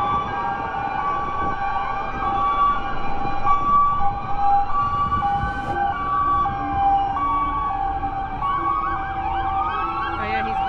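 Several emergency-vehicle sirens sounding at once: a two-tone hi-lo siren steadily alternating between a high and a low note, overlapped by wailing sirens that rise and fall. About halfway through, a lower two-note tone joins in.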